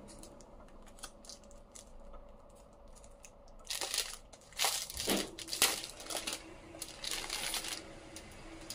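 Packaging being handled and pulled off a spiral-bound journal: faint taps and clicks at first, then about four seconds of loud crinkling and rustling starting around four seconds in.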